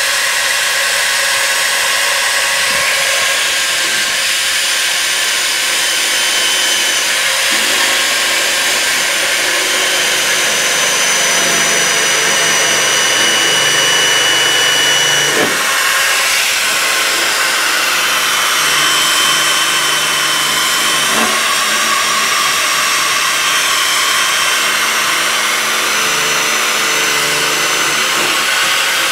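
Small corded rotary tool running against the rusty steel bed rail of a pickup, cleaning rust off it: a steady high whine with a hissing scrape, its pitch shifting a little as it works.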